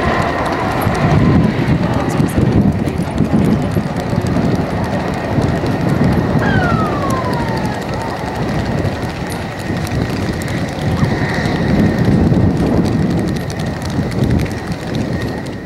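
Lockheed P-38F Lightning's Allison V-12 engines running: an uneven low rumble that swells and fades every second or two, over a steady high whine. A short falling whistle is heard about six seconds in.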